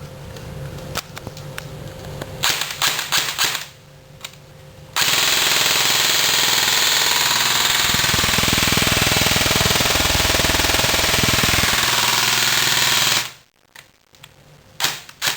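Airsoft electric gun's gearbox firing on full auto on a 9.6 V battery, in one continuous burst of about eight seconds that stops abruptly. A few handling clicks come before it.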